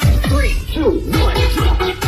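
Electronic dance music with a steady four-to-the-floor kick drum, about four beats a second, and DJ-style scratching sweeps over it.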